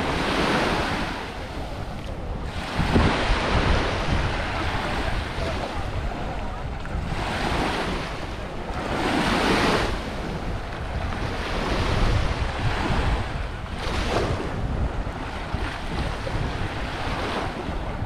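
Small waves breaking and washing up on a sandy shore, surging every few seconds, with wind rumbling on the microphone.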